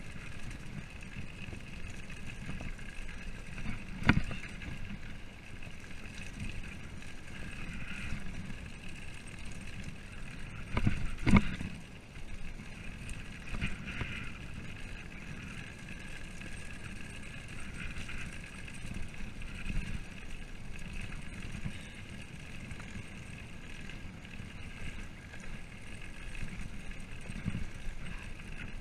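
Mountain bike rolling down a rough gravel road: a steady rumble and rattle, with two sharp knocks, the louder about eleven seconds in.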